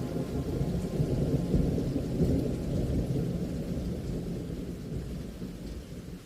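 Large waterfall pouring: a dense, deep rush of falling water that fades down near the end.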